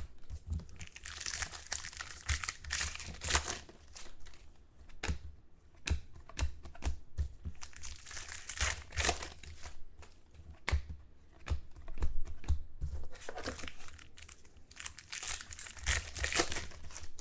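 Trading cards and foil pack wrappers being handled: crinkling and rustling with many sharp card flicks and taps, in clusters a few seconds apart.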